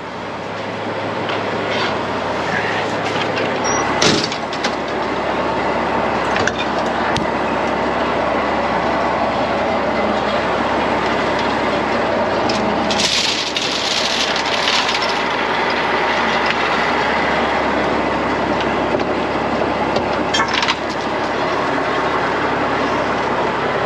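Heavy-duty wrecker's diesel engine running steadily, with a single knock about four seconds in and a brief hiss a little past halfway.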